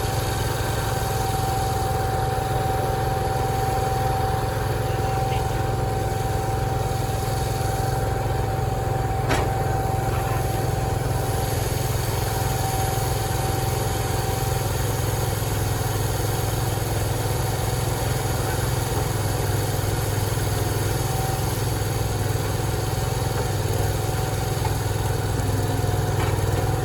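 Sawmill machinery running steadily with a deep engine hum and a steady high whine that fades about halfway through; a single sharp click about nine seconds in.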